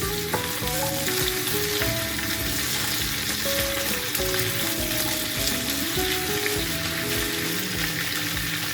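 Diced potato, pumpkin and onion frying in hot mustard oil in a kadai, with a steady sizzle, over background music.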